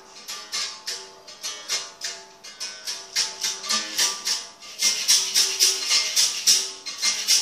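A berimbau being played: the stick strikes the steel wire in a quick steady rhythm, each stroke a short twang resonating through the gourd, switching between two notes. A caxixi basket rattle shakes with the strokes. The playing grows louder and busier about five seconds in.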